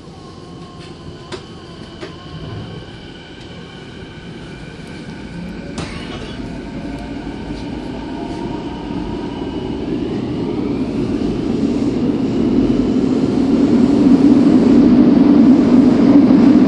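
Kobe Municipal Subway 1000-series train's IGBT-VVVF inverter and traction motors whining as it accelerates, the whine rising in pitch through several steps. The running noise of the wheels grows steadily louder throughout. A few sharp clicks come in the first six seconds.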